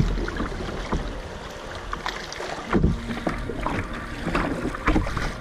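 Canoe being paddled on a river: paddle strokes in the water and water rushing past the hull, with wind buffeting the camera microphone. The noise swells with the strokes about every two to three seconds.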